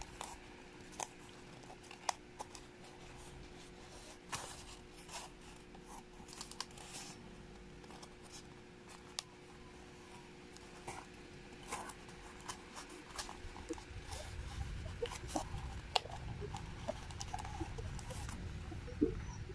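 Corrugated cardboard handled and pressed together by fingers: faint rubbing and rustling with many scattered small clicks and crackles.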